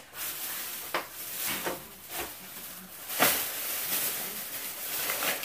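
Shopping bag rustling and crinkling as items are rummaged out of it, with a few sharper crackles, the loudest about three seconds in.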